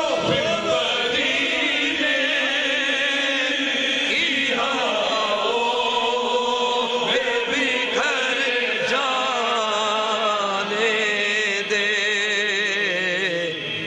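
A man's voice chanting a devotional naat (kalam), drawing out long sliding notes with a heavy wavering vibrato.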